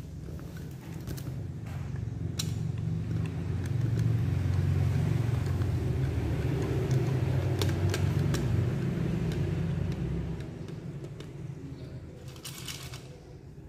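Low rumble of a vehicle passing outside, building up, peaking in the middle and fading away after about ten seconds. Over it come a few light clicks of dried fruit and a plastic jar against a glass tray, and a short rustle near the end.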